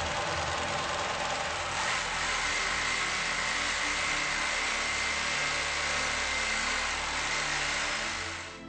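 Global PA304 P four-needle lockstitch industrial sewing machine with roller puller running steadily, stitching parachute fabric. A steady high whine joins about two seconds in, and the machine stops near the end.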